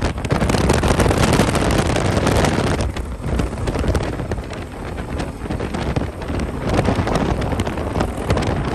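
Heavy wind buffeting on the microphone over steady road and vehicle noise at highway speed, with irregular gusts that dip and swell.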